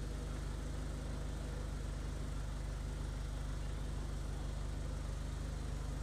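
Mitsubishi Eclipse GS-T's 2.0-litre turbocharged 16-valve four-cylinder engine idling steadily.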